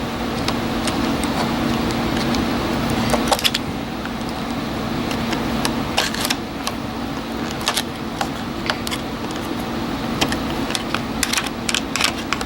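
Irregular small clicks and rattles of tools and plastic and metal parts being handled while a screw is worked out of an RC truck's drivetrain, over a steady low hum.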